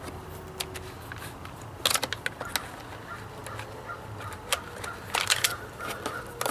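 Wire and plastic motorcycle fairing parts handled, irregular clicks, taps and rattles as a wire is pushed through the fairing, with a cluster of clicks about two seconds in and another about five seconds in.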